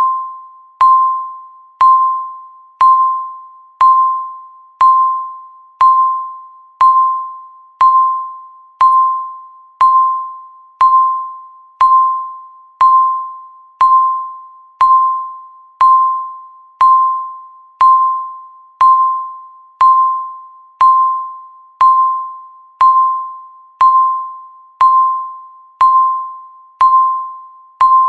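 A countdown timer's electronic beep, one for every second left: a single high tone about once a second. Each beep starts with a sharp click and fades away before the next.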